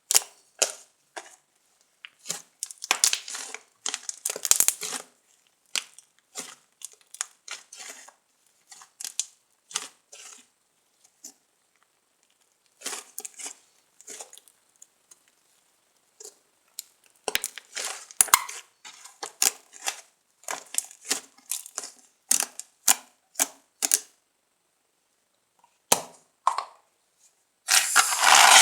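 Fluffy slime being squeezed and worked by hand: many short squishing, crackling bursts that stop and start, with a longer, louder one near the end.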